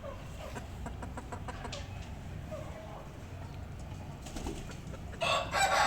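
Chickens clucking softly with short calls and scattered light clicks, then a loud, harsh burst about five seconds in.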